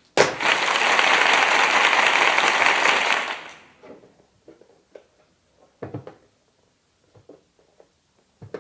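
Headphone packaging being pulled apart and handled: a loud rustling, crackling noise for about three seconds, then a few light knocks.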